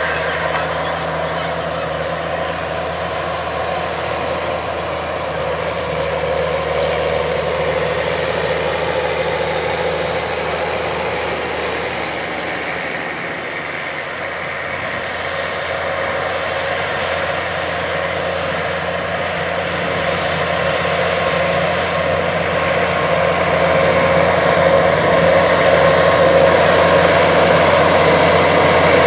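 New Holland TG210 tractor's diesel engine running steadily under load as it pulls a field tillage tool. It dips a little about halfway through and grows louder toward the end as the tractor comes close.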